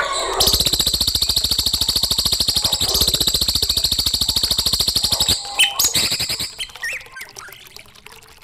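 Recorded songbird call used as a training track for young magpie robins: a loud, very fast buzzing trill of about five seconds, followed by a few short chirps that fade out.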